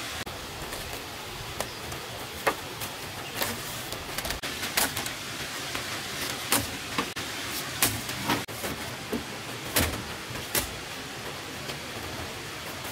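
Bunches of dried corn cobs dropped into a woven bamboo basket: irregular sharp knocks and crackles of cobs and dry husks, about a dozen scattered through, over a steady background hiss.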